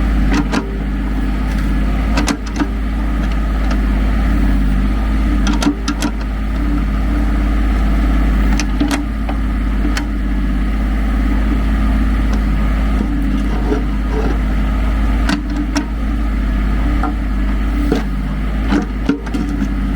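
Ford 1520 compact tractor's three-cylinder diesel running steadily under load while digging with its loader backhoe, with occasional sharp clanks from the bucket and linkage.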